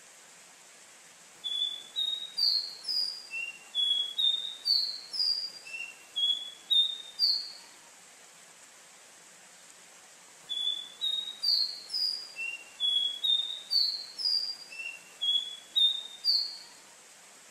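Caboclinho, a Brazilian Sporophila seedeater, singing: two bouts of quick, short, clear notes, about two a second, stepping up and down in pitch, over a faint steady hiss.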